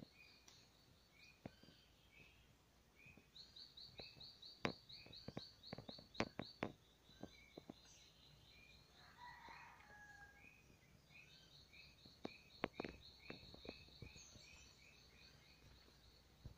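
Faint dawn chorus of small animal calls: high, fast trills repeating over and over, and short chirps about twice a second. A brief lower bird-like call comes about nine seconds in, and a few sharp clicks are scattered through.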